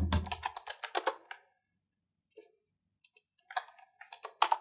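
Typing on a computer keyboard with mouse clicks: a quick run of keystrokes in the first second or so, a short pause, then a few scattered clicks near the end.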